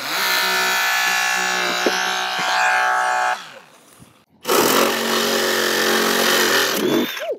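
Holmatro hydraulic rescue equipment running steadily with a cutter at work, the drone of its power unit holding a level pitch. It fades out about halfway through and starts again a second later.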